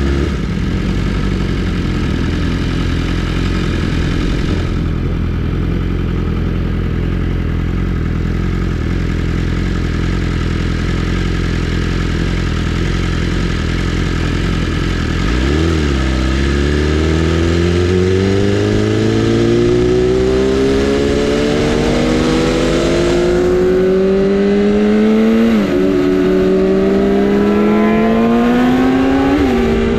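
Sportbike engine running steadily, then from about halfway through pulling hard with its pitch rising through the revs, dropping sharply at two upshifts near the end.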